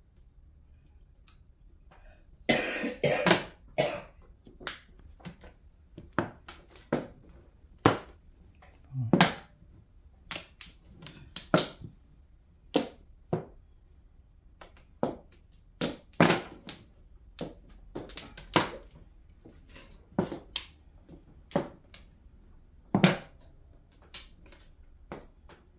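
Plastic mahjong tiles clacking as players draw, set down and discard them on the table: a quick flurry of clacks a few seconds in, then single sharp clacks every second or so.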